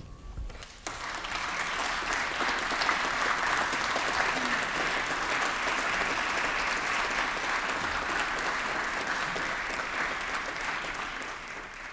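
Applause from a crowd of people, starting about a second in, holding steady and then fading out near the end.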